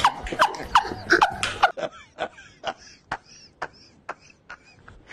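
Hearty laughter: a quick string of short ha-ha pulses, about four a second, loud at first and growing fainter after about two seconds.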